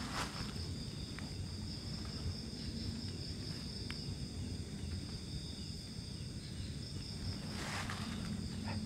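Crickets or other night insects chirring steadily in a high-pitched band over a low, steady rumble. There are brief rustles just after the start and again about eight seconds in.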